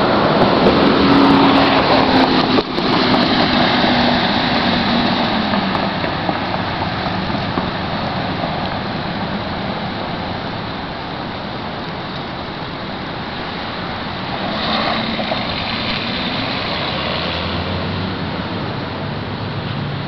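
Road traffic noise: a vehicle goes by in the first few seconds with a slowly falling engine note, and the hiss of traffic carries on, swelling again about three-quarters of the way through.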